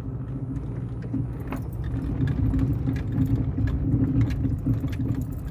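Car on the move: a steady low engine and road hum, with light scattered rattling clicks.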